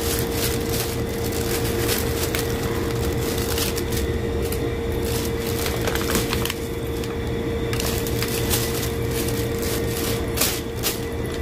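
Thin plastic carrier bag rustling and crinkling as hands dig into it and draw out a cardboard and foil takeaway container, with irregular crackles and clicks. A steady hum runs underneath.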